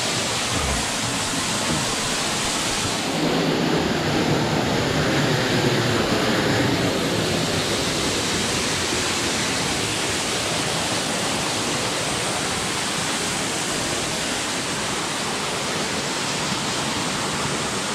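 Small waterfall spilling off a rock overhang and splashing into a shallow pool: a steady rushing hiss, slightly fuller a few seconds in.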